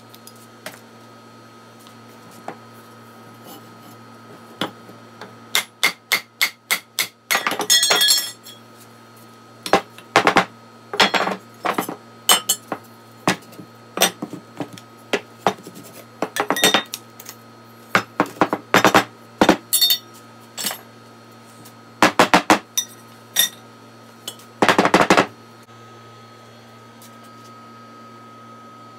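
Rusty steel tube pieces of an old rocking-horse frame clanking and clinking against each other as they are handled and pulled apart, in scattered runs of sharp metallic knocks with a light ring. A steady low hum underneath.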